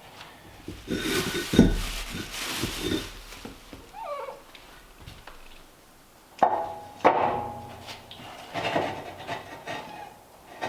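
Hard knocks and scraping as cut fire-brick pieces are set into place in a wood stove, in several clusters, with a short falling squeak about four seconds in.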